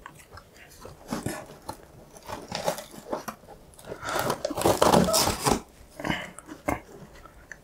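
Scissors cutting through the taped cardboard top of a shipping box: an irregular series of short snips and scrapes, loudest about halfway through, with the cardboard flaps rustling as they are handled.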